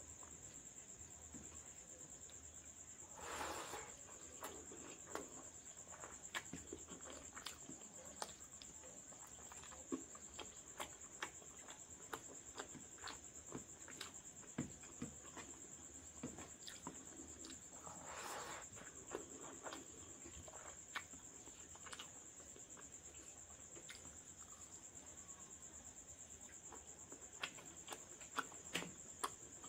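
Quiet sounds of eating rice and curry by hand: many small clicks and smacks of fingers squeezing rice and of chewing, with two short louder rushing sounds about three and eighteen seconds in. A steady high-pitched trill runs underneath throughout.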